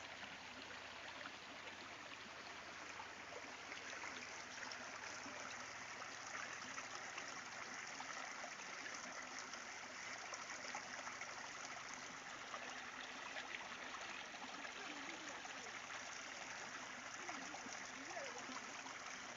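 Small river flowing, a steady, faint rush and trickle of running water.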